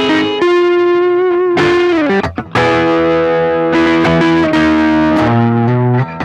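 Electric guitar played through distortion pedals: long sustained single notes with bends and vibrato, a brief gap about two seconds in, then more notes picked and held.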